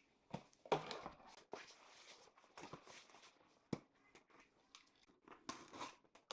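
Faint handling noises: scattered soft rustles and clicks, with one sharp click a little before the four-second mark.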